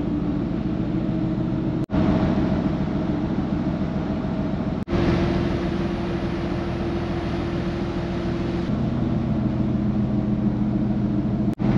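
Steady low drone of a car ferry's engines heard from on board, made up of several level hum tones. It breaks off abruptly for an instant about two seconds in, about five seconds in and near the end, with the hum's pitch mix shifting slightly after each break.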